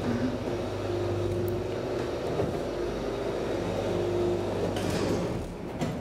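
Elevator car travelling: the hoist motor's steady hum with a held whine that comes in about a second in and fades out later, then the sound drops away near the end as the car stops.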